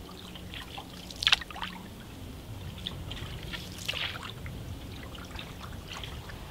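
Water trickling and dripping from a canoe paddle on slow strokes through calm water, with a brief sharper splash about a second in and a softer cluster of drips near four seconds.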